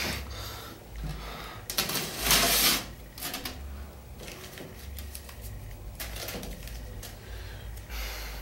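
Clicks and clatter of small items being handled at a bathroom medicine cabinet, broken by several short hissing bursts, the loudest about two seconds in.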